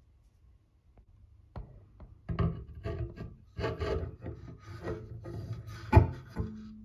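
A hand rubbing and knocking against the mirrored curing turntable of a Creality UW-01 wash and cure station as it is handled and turned, with irregular scraping and a sharp knock about six seconds in. A low steady hum starts near the end.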